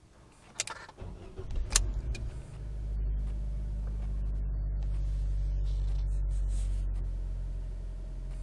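Fiat Grande Punto 1.4 8v four-cylinder petrol engine cold-started in freezing weather, heard from inside the cabin. A click comes about half a second in, then a second and a half of cranking, and the engine catches and settles into a steady fast cold idle, easing down slightly near the end.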